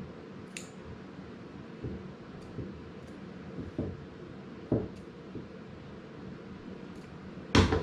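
Scissors snipping the tailor's-tack threads between two layers of fabric: a few faint, scattered clicks and soft cuts. A louder knock comes near the end.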